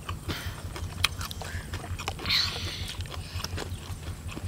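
Close-up eating sounds: many small clicks and smacks of chewing and of hands picking at food, with a brief crunch or rustle of leaves about two and a half seconds in, over a steady low rumble.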